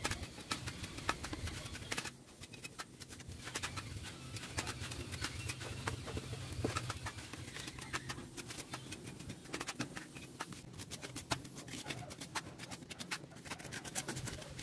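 Steel trowel scraping and tapping as wet cement mortar is scooped off a board and a bucket and pressed onto a cement column: many short scrapes and clicks. A low steady hum runs under the first half and fades out about halfway through.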